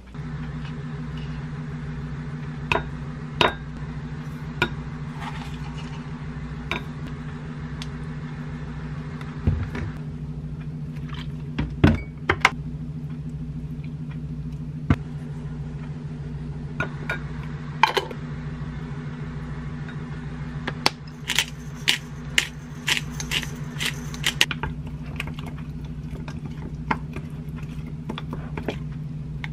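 Kitchen prep over a steady low hum: knocks of a knife on a wooden cutting board, then a spoon clinking and scraping in a glass bowl as a sauce is mixed, with a quick run of clinks a little past the middle.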